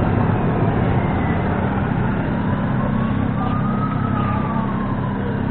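Motor vehicle engine running with a steady low rumble, and a faint tone slowly rising and falling above it.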